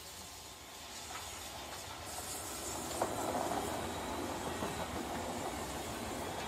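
Steam locomotive moving slowly: steam hissing and a rolling rumble that grows louder from about two seconds in, with one sharp clank about three seconds in.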